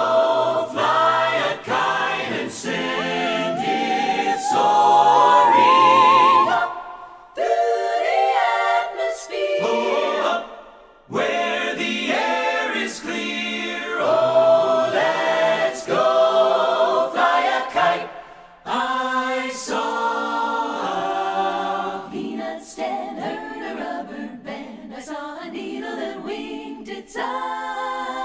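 Mixed-voice a cappella ensemble singing in close harmony, in phrases broken by brief pauses.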